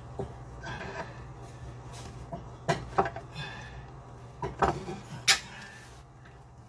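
A few sharp clicks and knocks of tools and plumbing fittings being handled under a bathroom sink, over a steady low hum.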